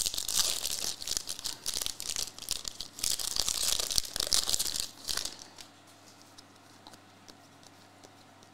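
Foil wrapper of a 2022 Panini Prizm football hobby pack being torn open and crinkled by hand, a crackly rustle lasting about five seconds.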